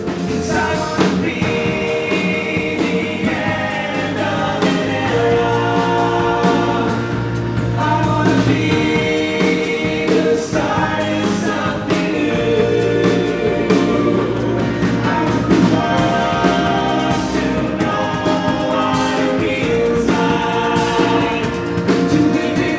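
Pop-rock band playing an acoustic set: several voices singing in harmony over strummed acoustic guitars.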